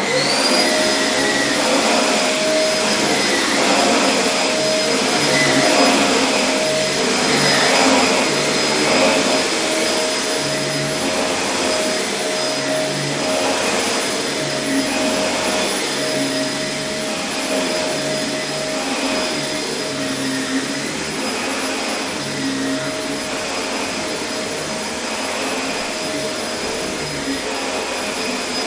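Vacuum cleaner switched on, its motor spinning up to speed within about half a second, then running steadily with a high whine over a rushing hiss of air.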